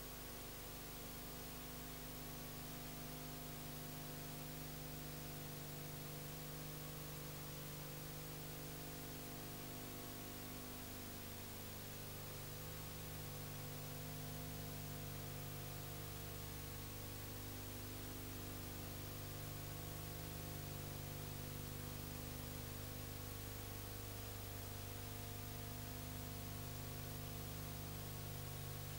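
Steady electrical mains hum with a constant hiss, unchanging throughout; the choir in the picture is not heard.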